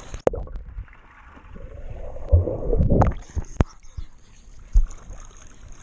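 Pool water sloshing and gurgling around a waterproof camera held at the waterline, the sound dull and muffled, swelling about halfway through. A few sharp knocks on the camera stand out.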